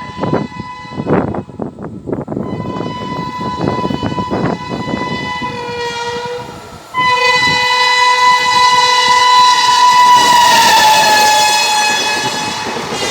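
WAP-7 electric locomotive's triple-tone horn sounding as the express approaches at speed. The horn is faint at first over a rhythmic clatter of wheels on rail joints, becomes suddenly much louder about seven seconds in, and drops in pitch as the locomotive passes.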